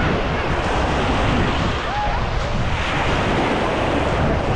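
Adriatic Sea waves washing onto the beach, with wind buffeting the microphone in a steady, low rumbling noise. Faint distant voices come through now and then.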